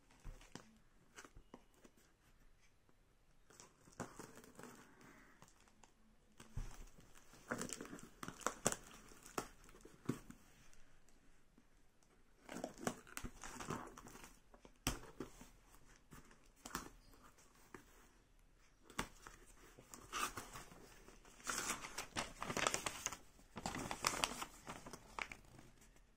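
Packing tape on a cardboard box being slit with a small blade and torn open, with paper and packaging crinkling in irregular bursts and clusters of scratches and clicks.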